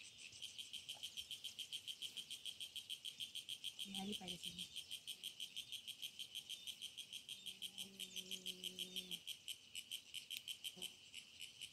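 Insects chirping in a fast, even pulse of several beats a second, high-pitched and steady throughout.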